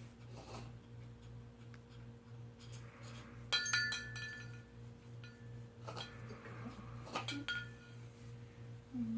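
A food bowl clinking as a cat eats from it: a few sharp clinks that ring briefly, the loudest about three and a half seconds in, with more around six and seven seconds. A steady low hum runs underneath.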